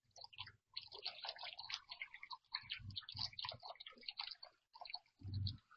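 Water dripping and splashing: a fast, irregular patter of small drips and ticks, with short pauses.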